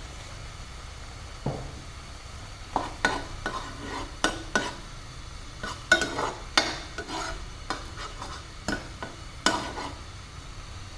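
A spoon stirring in a container, with a run of irregular clinks and scrapes against its side over a steady low background noise.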